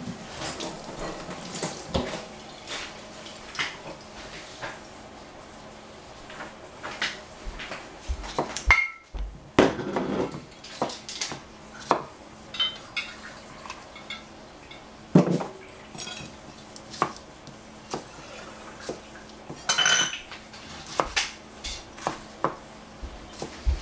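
Chef's knife chopping a cucumber on a plastic cutting board: irregular knocks of the blade striking the board, with a short ringing clink late on.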